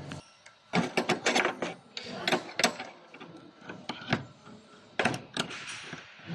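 A steady machine hum cuts off just after the start, followed by a run of irregular sharp clicks and clatters, as of metal parts or fittings being handled.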